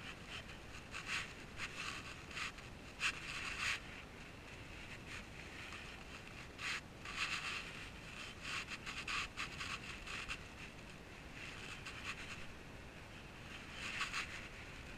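Bursts of rustling and scuffing from a person moving about in the dark. They come in three spells, at the start, in the middle and near the end, over a faint steady hiss.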